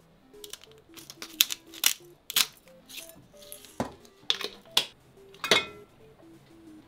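A run of sharp clicks and taps as pieces of mozzarella are set on a ceramic plate and salt is sprinkled over them, with a low thud partway through, then a loud clink with a short ring as a glass bottle is picked up. Quiet background music plays under it.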